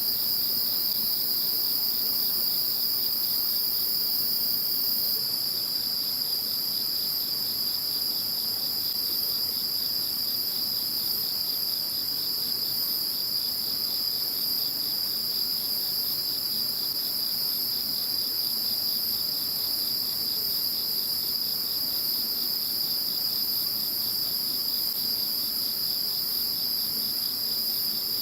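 A chorus of calling insects in steady, overlapping high-pitched trills at several different pitches.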